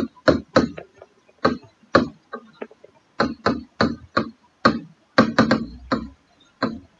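Marker pen writing on a whiteboard: a string of short, sharp strokes and taps at an irregular pace, two or three a second, as the letters go down.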